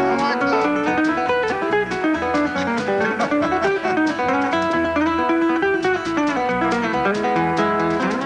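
Instrumental background music led by plucked guitar, with a steady beat.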